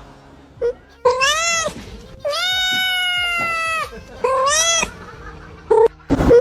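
A cat meowing repeatedly: about four meows, the longest drawn out for over a second and falling slightly in pitch in the middle, with a short noisy burst near the end.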